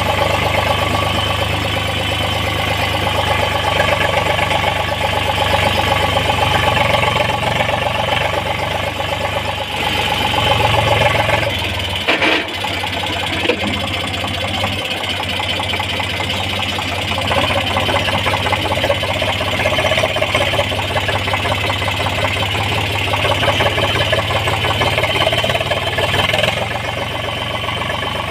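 Eicher tractor's diesel engine running steadily, with a short click and a brief drop in the low engine sound about twelve seconds in.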